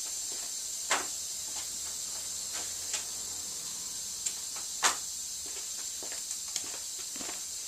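A few light, scattered knocks and clicks over a steady high hiss.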